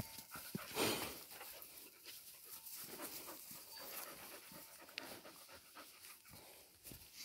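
Turkish livestock guardian dog panting close by, with a louder breathy burst about a second in.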